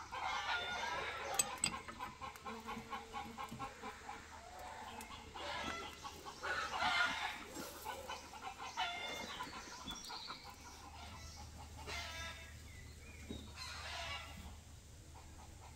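Domestic chickens clucking, a string of pitched calls that come back every few seconds.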